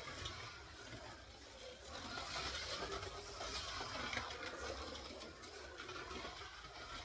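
Scalextric slot car lapping a plastic track: its small electric motor whirring and the car running along the track, growing louder about two to four seconds in as it comes past.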